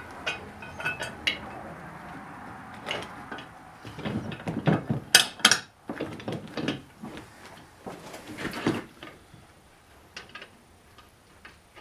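Irregular metallic clinks and rattles of steel bolts and galvanized nuts being handled and fitted on a steel receiver hitch assembly. The clinking is busiest a few seconds in and dies down near the end.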